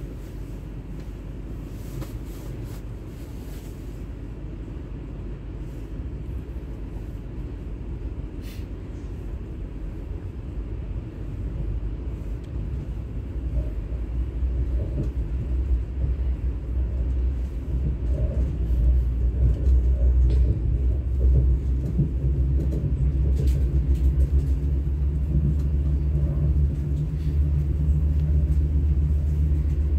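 ES2G 'Lastochka' electric multiple unit running, a steady low rumble of motors and wheels on track. The rumble grows louder over about the first twenty seconds, then levels off, with a few faint clicks.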